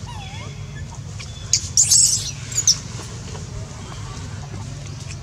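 Baby long-tailed macaque giving a few shrill, high-pitched squeals in quick succession about halfway through. This is the infant crying to nurse while its mother weans it.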